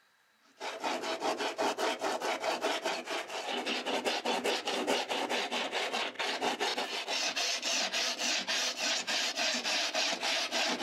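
Stanley Surform planer rasped back and forth over a model railroad diorama's scenery surface, scraping out a roadbed in quick repeated strokes, about four a second. The strokes start about half a second in.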